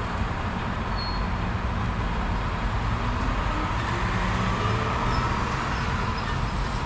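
Vehicle engines idling and running, a steady low hum with traffic noise.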